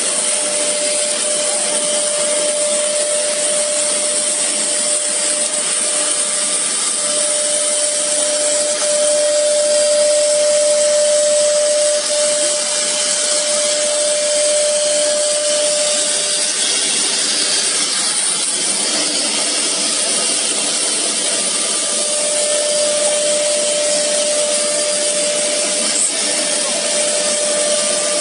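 CNC nesting router's spindle cutting an MDF sheet, with its dust extraction running: a steady, loud hiss of cutting under a high whine. The whine drops out for a few seconds past the middle, then comes back.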